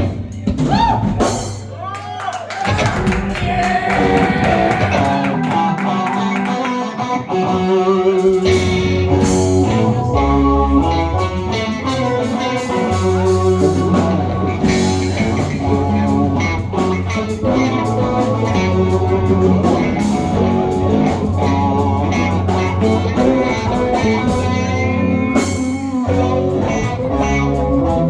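Live rock band playing: electric guitar over a bass line, with singing. The bass drops out for a few seconds early on and comes back in.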